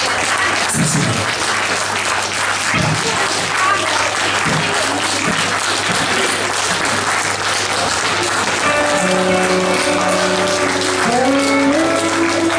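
Audience applauding throughout. About nine seconds in, the band starts playing again over the applause: held instrument notes and a stepping melodic line.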